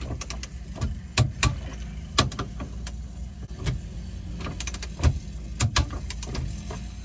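Half-inch-drive torque wrench ratcheting and clicking as the hitch's side bolts are tightened to 40: a string of sharp, irregularly spaced metallic clicks, with a steady low rumble underneath.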